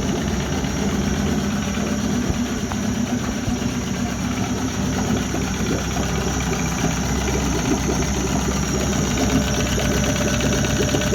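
1995 Tohatsu M8B two-cylinder, two-stroke outboard motor running steadily.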